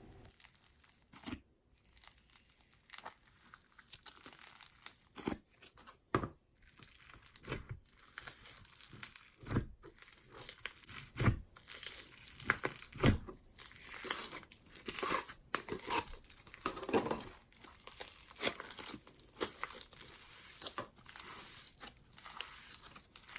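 Snow fizz slime being worked by hand, giving irregular crunchy, crackling sizzles.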